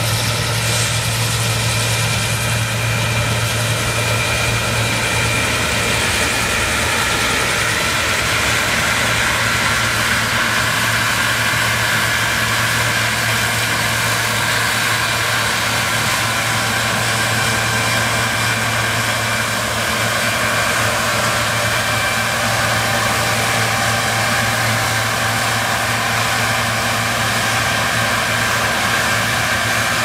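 John Deere combine harvester and John Deere tractor running together at work: a steady low engine drone with a steady higher machinery whine over it, as the combine harvests barley and unloads grain into the tractor's trailer on the move.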